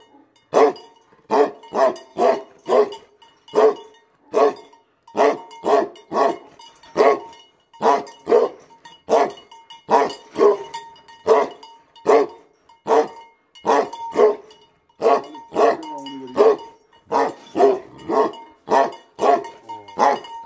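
Tibetan mastiff barking aggressively and without pause, about one and a half barks a second, often in quick pairs. The metal bell on its collar clinks faintly between the barks.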